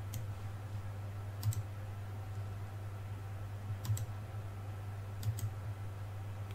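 Four sharp computer mouse clicks a second or so apart, three of them quick doubles, made while colours are picked in a software colour dialog. A steady low hum runs underneath.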